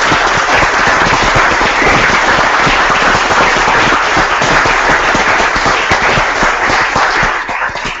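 Audience applauding, many hands clapping steadily, thinning out near the end.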